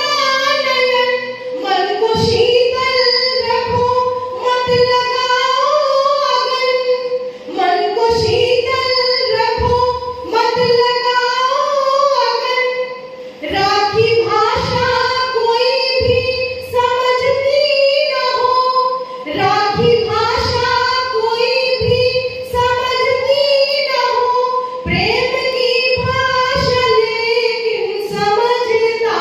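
A woman singing a Hindi love song (prem geet) solo into a handheld microphone, with no accompaniment: long held melodic phrases separated by short breaths.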